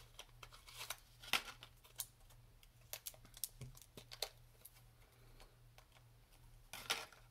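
Faint, scattered clicks and taps of a small eyeshadow pan and its packaging being handled, about half a dozen in all, over a low steady hum.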